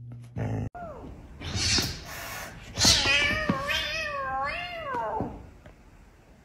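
Kittens meowing: a short meow about a second in, then hissy bursts and a long, wavering meow that trails off about five seconds in.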